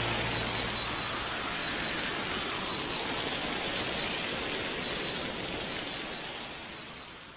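The music's last low note dies away in the first half second, leaving a steady rushing noise with faint high chirps here and there. The noise slowly fades out toward the end.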